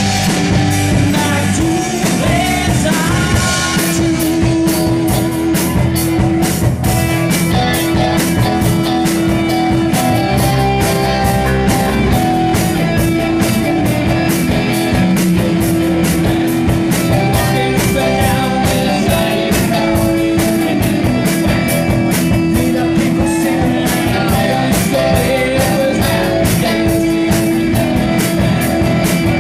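Live rock band playing: electric guitars, bass guitar and drum kit with a steady cymbal beat.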